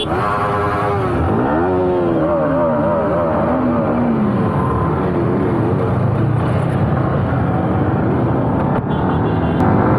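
Several sport motorcycle engines running and revving together, heard close from one of the bikes as the group rides off. Their pitches sweep up and down over the first few seconds, then settle into steady running.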